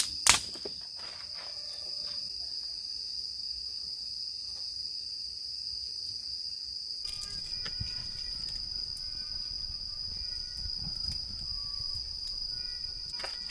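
Night insects trill steadily in one continuous high-pitched chorus. A sharp snap comes a moment in, and in the second half a small twig fire adds faint crackles and pops.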